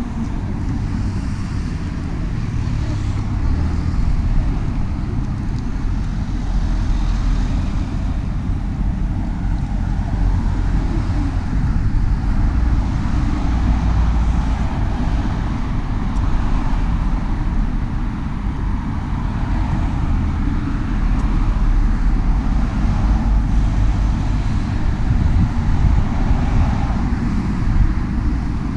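Steady rumble of road traffic, with wind buffeting the microphone.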